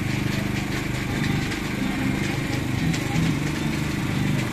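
A small engine running steadily, with faint light clicks and clinks over it.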